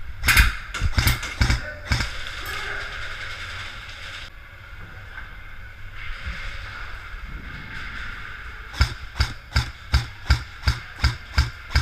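Airsoft gun shots: a few sharp cracks in the first two seconds, then a steady string of single shots, about three a second, from around nine seconds in.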